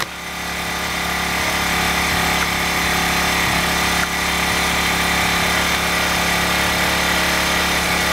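Ryobi RYi1000 inverter generator's engine running steadily, a little louder after the first second, with no load: its overload protection has tripped and cut the output after a 12-amp tool overloaded it.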